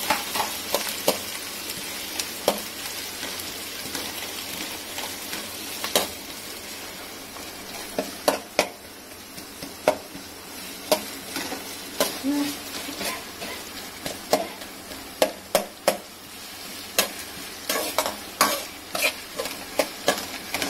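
Sliced onions sizzling in hot oil in a pan, being fried until brown, with a slotted spatula stirring them and clicking and scraping against the pan again and again, more often in the second half.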